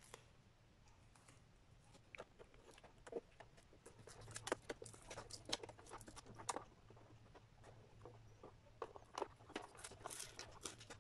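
Faint crackling and rustling of a yellow plastic insulating sheet being peeled off lithium battery cells, in scattered sharp crackles that are sparse at first and busier from about four seconds in.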